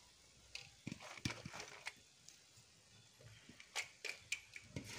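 Faint clicks and scrapes of a steel bowl and spoon against a steel cooking pot while fried onions are scattered over biryani rice. A few sharp clicks come through, the loudest near the end.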